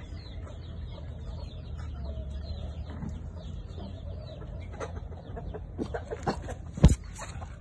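Birds chirping steadily in the background over a low rumble, with a few clicks in the last couple of seconds and one sharp click about seven seconds in.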